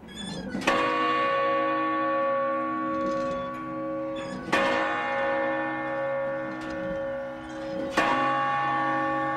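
Large bronze bell of St Mark's clock tower struck by the hammers of its bronze figures, the Moors, tolling the hour. Three strikes about three and a half seconds apart, each ringing on with a slow wavering hum between them.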